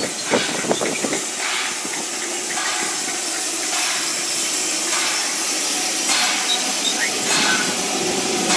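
Steady hiss of escaping steam from the LNER B1 class 4-6-0 steam locomotive 61306 Mayflower, with a few knocks in the first second.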